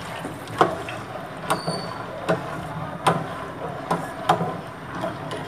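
A perforated steel spatula stirring macaroni in a stainless steel saucepan of hot water, its edge clinking sharply against the pan about once a second over a steady watery hiss.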